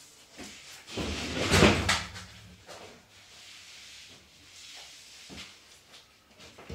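Plywood and lumber being handled: a loud scraping clatter of wood about a second in, then a softer scrape and a few light knocks.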